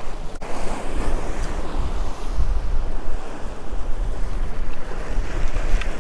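Wind buffeting the microphone with a steady low rumble, over surf washing against the jetty rocks.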